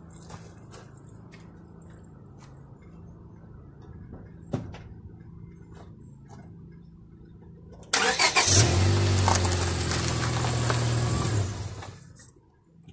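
Faint steady hum with scattered light clicks, then about eight seconds in the 1999 Honda Civic's four-cylinder engine starts suddenly and runs loudly for about three seconds before fading out.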